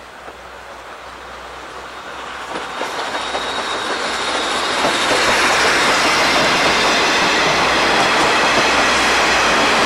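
A steam-hauled passenger train, the C58 steam locomotive and its KiHa 141 series coaches, passing close by on the rails. The rolling noise of the wheels on the track grows over the first five seconds, then holds steady and loud as the coaches go by.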